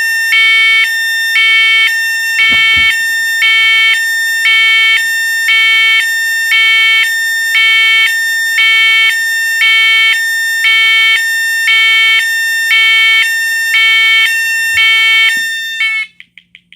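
Fire alarm sounding loudly: an electronic signal alternating between two tones about once a second, over a steady higher tone. It cuts off abruptly near the end.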